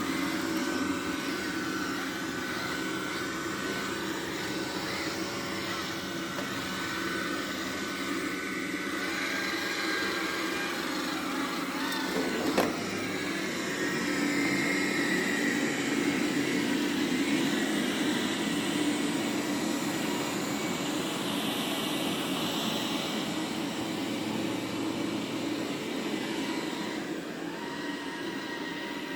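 Roborock Q7 Max robot vacuum running steadily on a carpet, its suction motor and brush making a continuous whir with a few held tones, which rises in level for a while after the middle. A single sharp knock about twelve seconds in.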